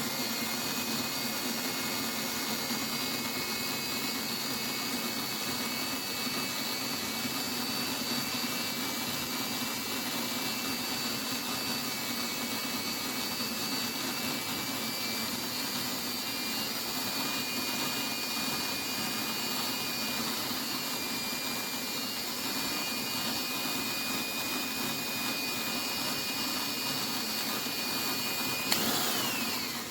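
Electric drill running at a steady speed with a high whine, then switched off near the end, its whine falling as it winds down.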